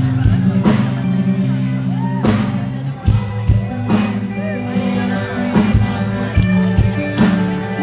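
A live rock band playing loudly through a PA, with electric guitar, keyboard and drums, with singing over sustained chords and regular drum hits.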